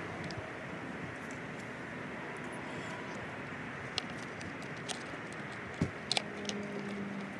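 Steady outdoor background noise of distant traffic. From about four seconds in there are a handful of small, sharp clicks as a skateboard wheel with its bearings is fitted onto the truck axle. A faint low steady hum comes in near the end.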